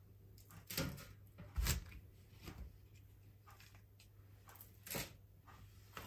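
Plastic star cookie cutter being pressed through stiff cinnamon-star dough and set against the board: four soft knocks and taps, the loudest about a second and a half in.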